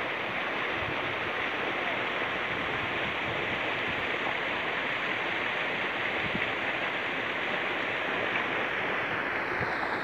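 Steady rush of river water pouring over a small cascade.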